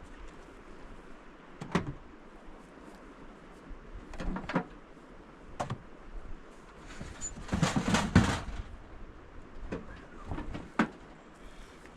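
Scattered knocks and clatter of objects being handled, with a busier run of clattering about eight seconds in, over a low steady rumble.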